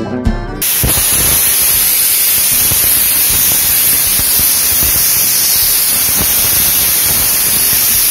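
Stovetop pressure cooker venting steam through its weight valve: a loud, steady hiss with no whistle tone, starting about half a second in.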